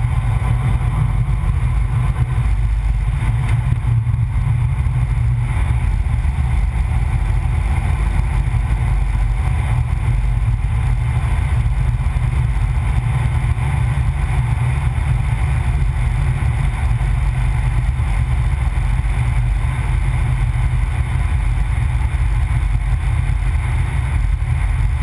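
Car driving on a race circuit, recorded by a low-mounted onboard camera: a steady, loud low rumble of engine and road noise with no clear revving or gear changes.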